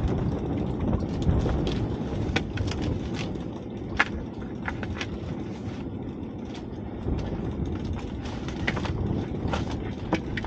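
Scattered sharp clicks and knocks of crab shells and a crab pot being handled by hand, the loudest about four seconds in, over a steady low rumble.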